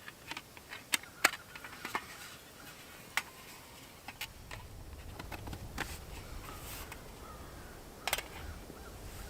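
Scattered light clicks and knocks of camp cooking gear being handled, the strongest about a second in and near the end, with a low rumble starting about halfway through.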